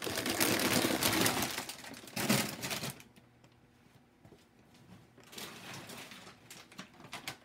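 Plastic chip bags crinkling as they are handled and lifted away, loud for the first three seconds, then a softer spell of crinkling near the end.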